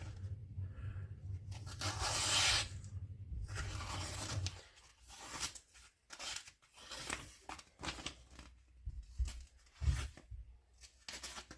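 Paper towel rustling and tearing as a knife blade is wiped, loudest about two seconds in. This is followed by a run of short, separate scrapes.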